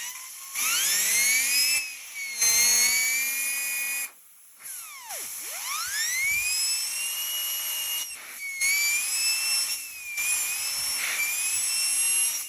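Vacuum cleaner motor fan spinning up to a high whine, then switched off and on again several times. Each start rises in pitch. Near the middle it winds down almost to a stop and speeds back up.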